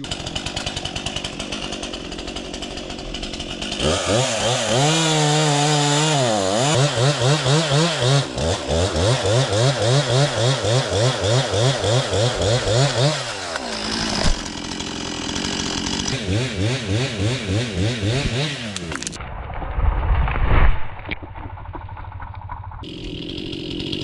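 A two-stroke chainsaw idles, then is run at full throttle cutting through the stem of a windblown tree at its root plate; the engine note wavers as the chain bites. The saw eases off a little past halfway, cuts again briefly, and a heavy thump sounds near the end.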